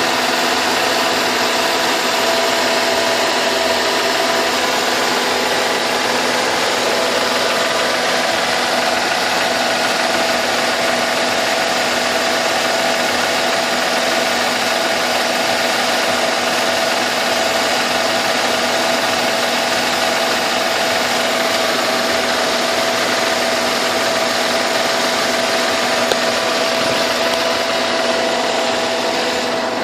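Mercedes-Benz W211's M112 V6 petrol engine idling steadily with a knock, the fault it is being recorded for.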